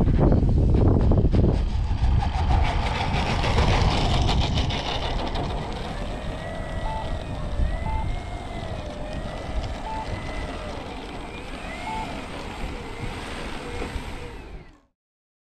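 Wind rumbling and buffeting on the microphone, easing off after about six seconds. Then short high electronic beeps sound every one to two seconds, four of them, over a faint wavering tone.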